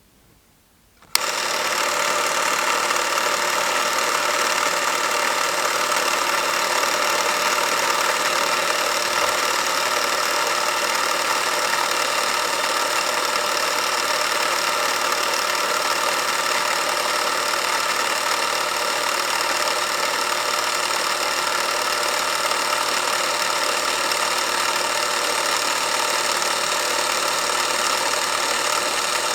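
Porst Reflex ZR 422 Super 8 film camera starting with a click about a second in, then running steadily as it films, its motor and film transport making an even mechanical whir.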